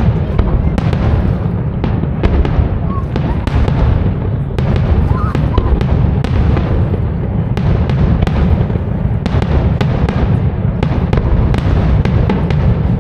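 Aerial fireworks display going off: a rapid, irregular string of sharp bangs and crackles from bursting shells over a continuous low rumble.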